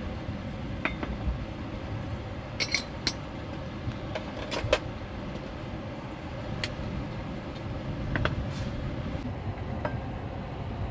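Heavy rain on the vehicle's roof and windows, a steady low rumble, with several sharp metal clinks as a stainless gooseneck kettle and its lid are handled and set down on a wooden lid.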